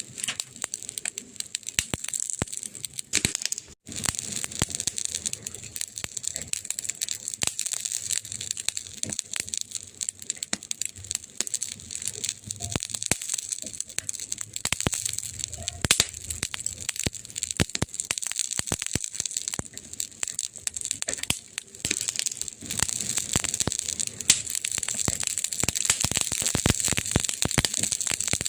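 Wood fire burning in a fireplace, crackling with dense, irregular pops and snaps over a steady hiss. The sound drops out for a moment about four seconds in.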